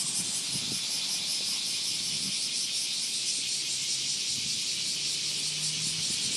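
Chorus of cicadas (semi) in full summer song: a loud, continuous, high-pitched shrill buzz that holds steady.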